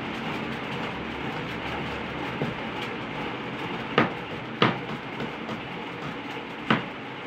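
Kitchen knife cutting a tomato on a plastic cutting board, the blade knocking sharply on the board a few times, three loudest in the second half, over a steady background noise.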